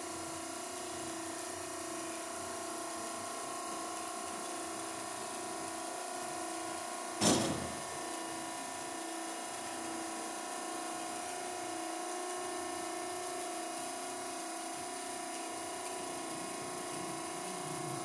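Steady electric hum of a Max-Pak MP60HD vertical baler's hydraulic pump motor running, with one sharp knock about seven seconds in.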